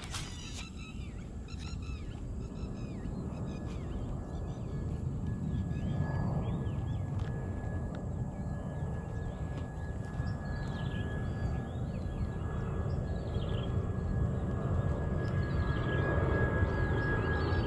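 Birds chirping and calling over a low, steady rumble that slowly grows louder. A thin steady high tone joins partway through.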